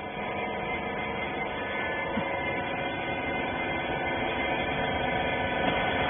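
Steady machine hum from a hydraulic rag baler's running motor and pump, slowly getting a little louder.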